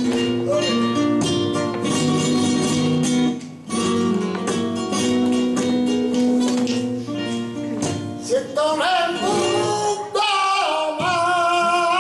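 Live flamenco: a guitar playing with hand-clapping (palmas), and a man's singing voice coming in about two-thirds of the way through, bending up and down through long ornamented notes.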